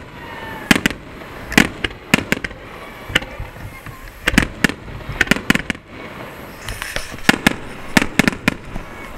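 Fireworks display: aerial shells bursting in a rapid, irregular series of sharp bangs, about two a second, some coming in quick pairs.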